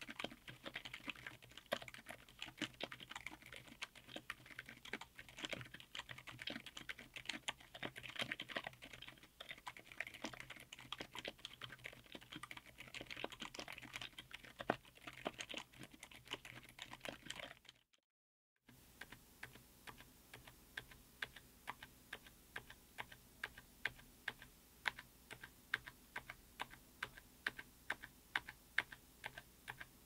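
Quiet typing on a mechanical keyboard with Outemu Silent Yellow Jade silent tactile switches, SA-profile ABS keycaps, an FR4 plate and an aluminium case. Fast, dense keystrokes break off after about 18 seconds; after a short gap the keys are pressed one at a time at an even pace of about three a second.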